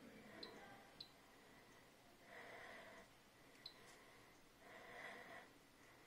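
Near silence, broken by faint short high beeps from the AEG L9FER962A washing machine's touchscreen as its settings are tapped: two in the first second and one more past the middle. There are also two soft breaths close to the microphone.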